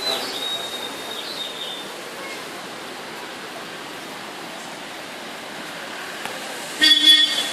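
Steady outdoor rushing noise with no clear pattern, with a faint high whistle-like tone in the first two seconds. About seven seconds in comes a short, loud pitched blare lasting about half a second.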